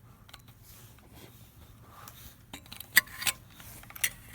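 Small metallic clicks and handling noise from an indicator lock's button and turning mechanism being worked by hand, with a few sharp clicks in the second half.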